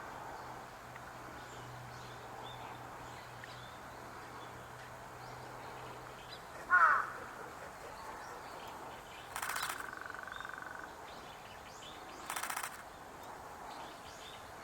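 Bird calls in open air: one loud call falling in pitch about seven seconds in, then two shorter, harsh calls a few seconds apart, over a faint steady low hum.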